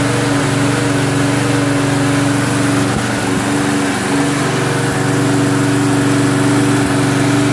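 Walk-behind gas lawn mower's small engine running at a steady speed.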